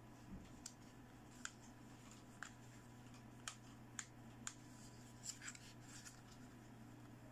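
Light plastic clicks and taps from a toy dental model of pink plastic teeth being opened, closed and turned in the hands: about ten short, scattered clicks, over a faint steady low hum.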